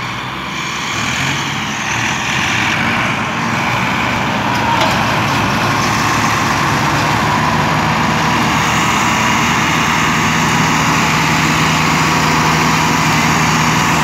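Several diesel farm tractors, NH Ghazi, NH 640 and Massey Ferguson 260, running hard together under heavy load as they pull a loaded sugarcane trolley. The engine noise builds over the first few seconds, then holds steady.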